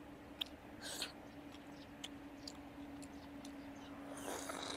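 Close-miked eating of ripe sapodilla fruit: soft wet mouth clicks and chewing, then a louder bite into a whole fruit near the end. A faint steady hum runs underneath.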